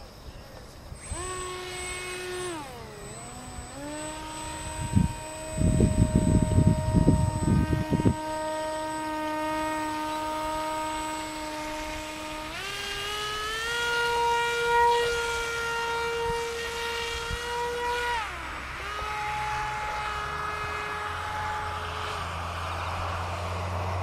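Electric motor and propeller of a small RC foam flying wing whining in flight, its pitch stepping down and up several times with the throttle. For a few seconds near the middle, loud low wind rumble on the microphone covers it, and a rushing noise builds near the end.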